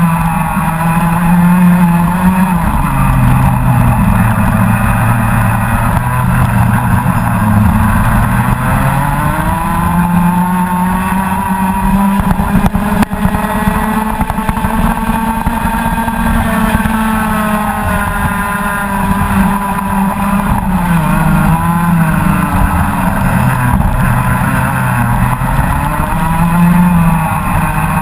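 Rotax Max Senior 125 cc single-cylinder two-stroke kart engine running at race speed, heard from on board. Its pitch drops about two seconds in, climbs again from about eight seconds and holds high through the middle, then dips twice near the end before rising again, as the kart brakes for corners and accelerates out of them.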